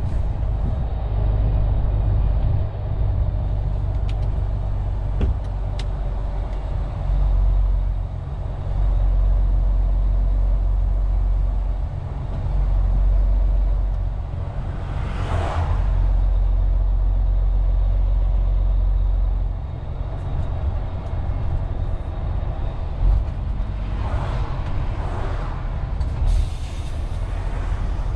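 A MAN TGX 470 truck's diesel engine and road noise heard from inside the cab, a steady low rumble that rises and falls in level every few seconds. Short hissing swells come through once about halfway through and twice near the end.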